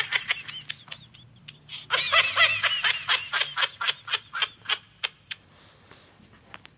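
High-pitched laughing in two bouts: a short one at the very start, then a longer one from about two seconds in that breaks into rapid pulses and fades out.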